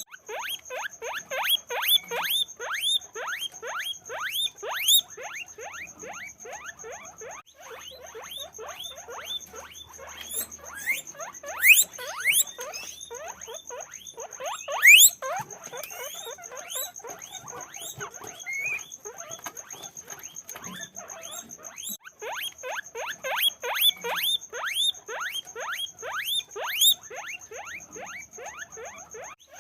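Guinea pigs wheeking: a dense stream of short rising squeaks, several a second, swelling into louder runs now and then. A steady high-pitched whine runs underneath.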